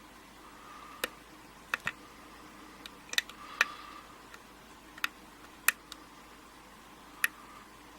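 Metal lock pick and tension wrench working the pin tumblers of an Abus 72/40 padlock during single-pin picking: about a dozen sharp, irregular clicks and taps with pauses between them.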